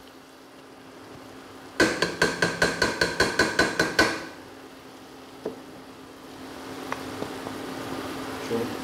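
Rapid tapping on the rim of a metal cooking pot, about a dozen sharp ringing knocks some six a second for two seconds, knocking ground dried shrimp into the pot. Then the faint sizzle of laksa paste frying, over a steady low hum.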